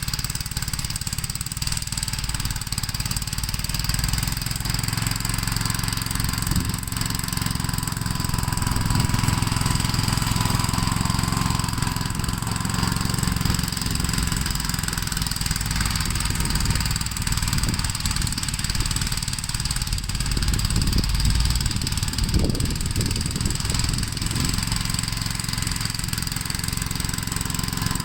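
Gravely L8 walk-behind tractor's single-cylinder engine running steadily while plowing snow, its level swelling and easing a little under changing load.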